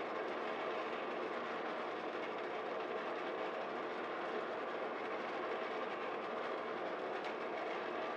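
Steady whir of a turbo convection oven's fan over a West Bend Stir Crazy popcorn popper, with coffee beans rattling as they are stirred round the pan; the roast is at about 400° and not yet at first crack.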